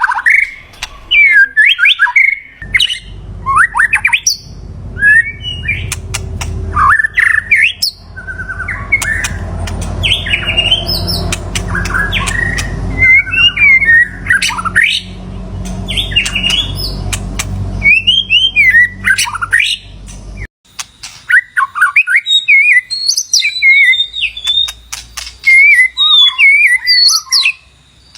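White-rumped shama singing: a long run of loud, varied whistled phrases that glide up and down, with sharp notes between them. A low background rumble sits under the song for much of the time and cuts off suddenly about two-thirds of the way through.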